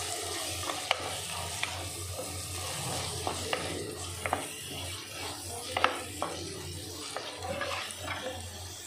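Wooden spatula stirring onions and ginger-garlic and coconut paste frying in oil and ghee in a clay pot, with a steady sizzle and scattered light taps of the spatula against the pot.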